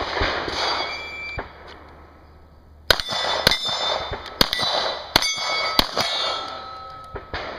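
Handgun fired about five times over roughly three seconds, starting about three seconds in, each shot followed by the ringing of steel plate targets being hit.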